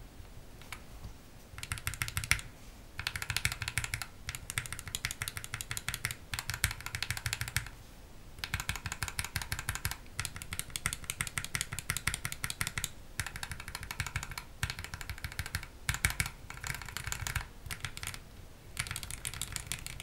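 Keycaps on Gateron optical switches wobbled rapidly by hand, giving about ten short bursts of quick, high-pitched rattly clicking. The rattle is play in a switch housing that sits loose in the plate; a switch film fitted under the housing tightens it and cuts the rattle.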